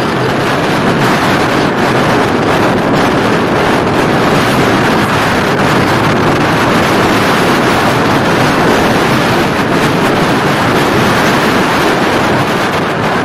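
Loud, steady wind rush over the microphone of a phone carried on a moving scooter, mixed with the scooter's running and road noise.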